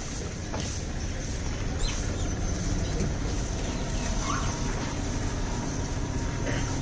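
Open gas burner under a pot of boiling chai, burning with a steady low rush, with a few clinks of a steel ladle against the pot as the tea is stirred.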